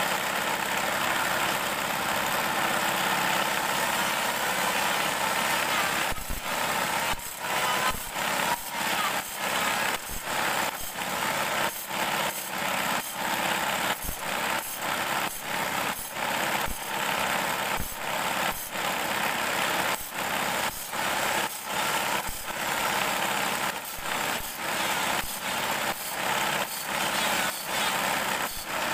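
Belt-driven table saw running steadily. From about six seconds in, the teeth of a bandsaw blade are ground one after another against its spinning disc to sharpen them, in a steady rhythm of short strokes about one and a half a second.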